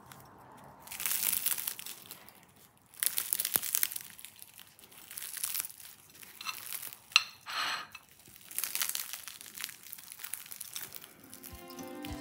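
Crisp, flaky crust of a baked layered cheese börek crackling in several separate bursts as it is broken into.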